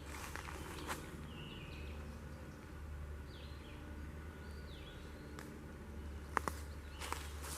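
Footsteps crunching through leaf litter on a woodland floor, a few near the start and several more toward the end, while a songbird gives a handful of short chirps that slide downward. A steady low hum runs underneath.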